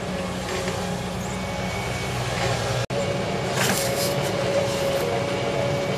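Hitachi tracked excavator's diesel engine running under working load, a steady drone. The sound cuts out for an instant about three seconds in; after that a steady high whine runs under the engine, with a short clatter of cracks soon after.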